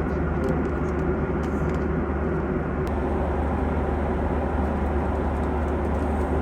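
Steady cabin noise of a jet airliner in flight: an even rushing sound with a deep constant hum underneath.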